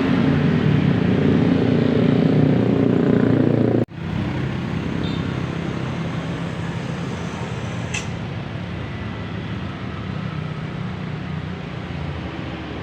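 A large bus's engine rumbling loud and close as it passes, breaking off abruptly about four seconds in. It is followed by steadier, quieter road traffic noise.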